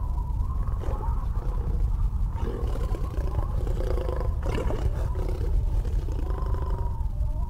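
A big cat's low, continuous growl.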